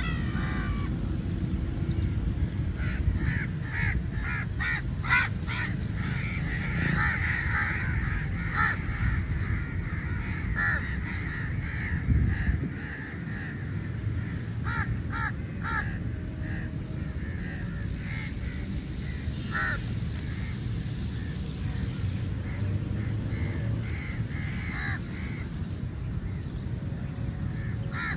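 A flock of crows cawing, many harsh calls in quick overlapping runs, densest in the first half, over a steady low rumble.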